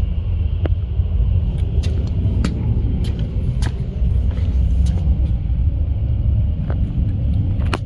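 Steady low rumble of a vehicle, with a few faint clicks scattered through it.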